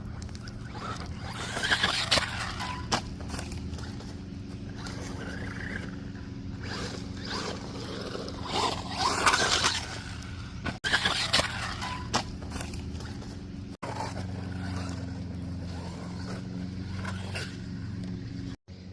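WLtoys electric RC car running, with a steady motor drone and its tires scraping over the ground, and two louder scrabbling bursts about two seconds in and about nine seconds in.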